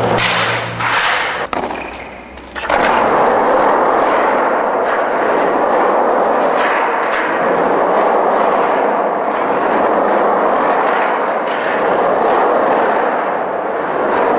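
Skateboard wheels rolling on concrete inside a large pipe: a steady rolling noise from about three seconds in, with a few faint knocks. A short tail of music fades out at the start.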